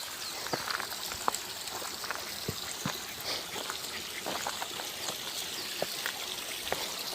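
Mountain stream water trickling and splashing over rocks, with scattered small splashes and clicks.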